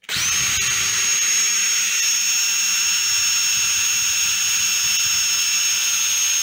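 Cordless drill running at a steady speed with an even whine, drilling out a rivet in the metal end cap of a broom handle; it starts up at the very beginning.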